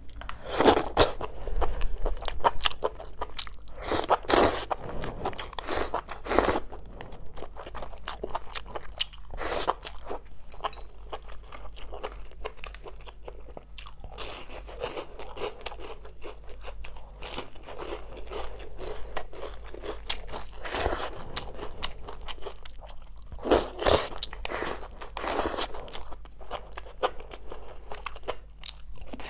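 A person biting and chewing crispy fried food: repeated crunches, with louder bites every few seconds.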